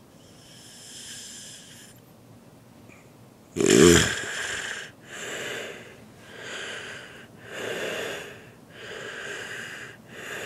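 A person snoring: one soft breath, then a sudden loud snort about three and a half seconds in, followed by a run of noisy breaths a little over a second apart.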